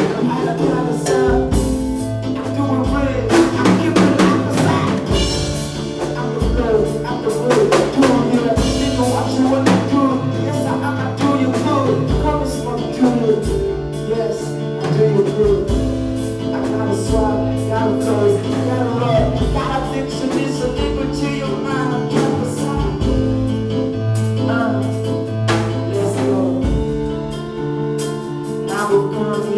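A live band playing during a sound check: drum kit hits over sustained low notes and chords, with singing.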